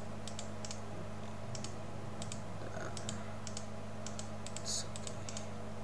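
Irregular light clicks of a computer mouse and keyboard, over a steady low hum.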